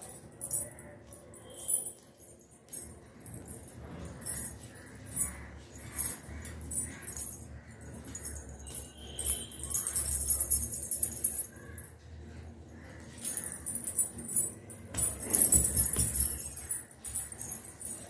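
Silver anklets (payal) with small bells jingling on bare feet. Short jingles come with each step, about one a second, then two longer runs of continuous jingling, about ten seconds in and again around fifteen seconds in.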